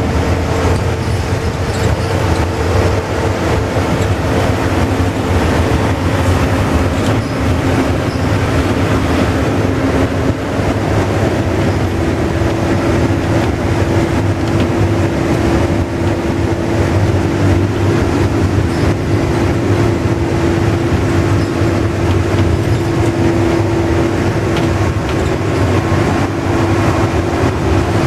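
Volvo Super Olympian double-deck bus cruising at highway speed, heard from inside the passenger cabin: a steady engine drone and road noise with a drivetrain whine whose pitch shifts about ten seconds in.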